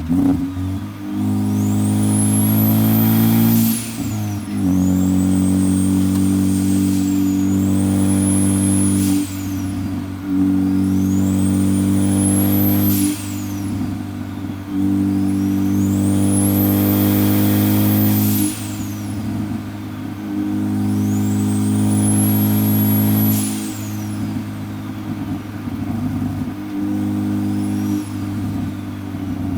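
Big-turbo Ford Focus ST accelerating hard about five times, each pull with a high turbo whistle that rises as it spools, holds and falls away when the throttle lifts, over a steady engine drone.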